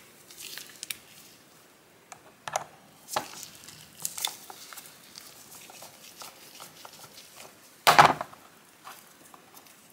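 Scattered light clicks and taps of a screwdriver and small metal parts of an 1895 Singer 15-11 sewing machine being handled during disassembly, with one louder knock about eight seconds in.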